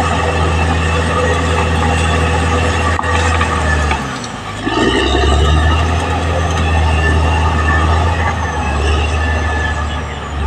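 Caterpillar D6R XL bulldozer's diesel engine running steadily. Its note sags and drops briefly about four seconds in, then picks back up.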